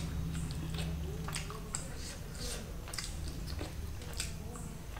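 Close-up chewing of a piece of biryani chicken, with many short wet mouth clicks and smacks. A low steady hum runs underneath.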